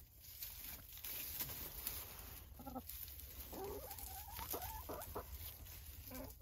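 Backyard hens making quiet calls: a short call about two and a half seconds in, then a run of soft rising and falling trills for a second or two, with faint ticks and rustles from the birds pecking about in straw.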